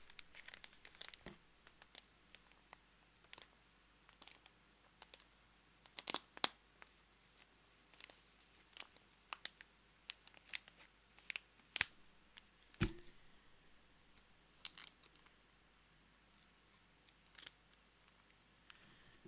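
Faint, scattered crinkling and clicking of a stand-up pouch bag being handled, with a few sharper clicks and one knock about 13 seconds in.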